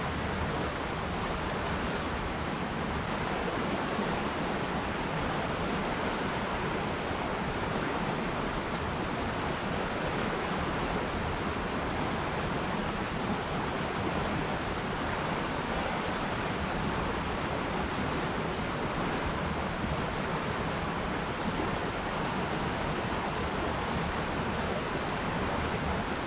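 River water flowing and rushing, a steady even noise that does not change.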